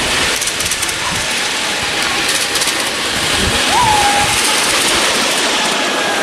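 Miniature ride-on train passing close by, its wheels running on the rails with a steady rushing rattle and some faint clicking.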